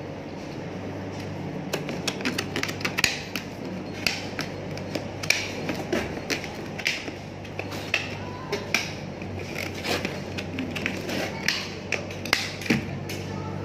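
A tool prying around the rim of a plastic paint bucket's lid to open it: a run of irregular sharp clicks and snaps, starting a couple of seconds in, over a steady low hum.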